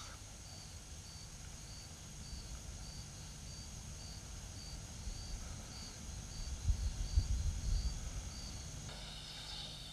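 Faint cricket chirping, a short high chirp repeating evenly about twice a second, over a low rumble that swells briefly about seven seconds in.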